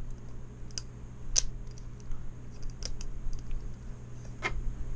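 Small sharp clicks and snaps at irregular intervals as support material is picked and cut out from inside a 3D-printed plastic part with a hand tool, over a steady low hum.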